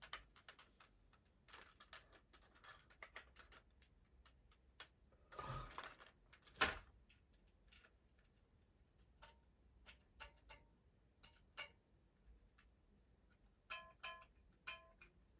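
Faint handling sounds of a plastic toy and its AA batteries: scattered small clicks and taps, a brief rustle, one sharper click about a third of the way in, and several short ringing clinks near the end. The batteries are being removed after they were found beginning to corrode.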